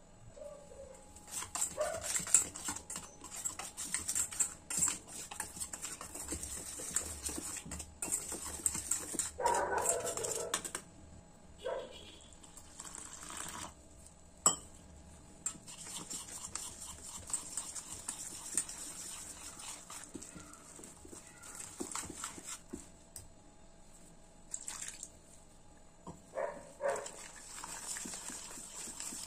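Wire whisk stirring gram-flour batter in a steel bowl, with light clinks and scrapes against the metal and the wet slap of the batter. A few louder short sounds come about ten seconds in and again near the end.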